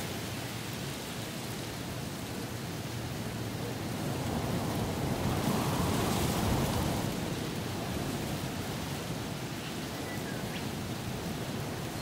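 Strong wind rushing through rainforest trees and grass trees, swelling into a louder gust about halfway through and easing again, with the low rumble filtered out.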